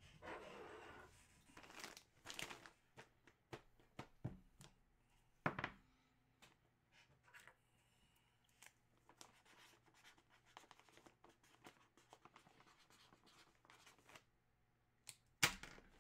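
Plastic poly bags crinkling and rustling as bagged jerseys are handled on a desk, with a couple of knocks and scattered small clicks.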